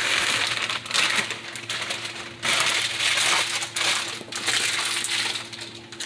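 Large pot of water at a rolling boil with elbow macaroni just added, giving a crackling, bubbling hiss that swells and dips in waves.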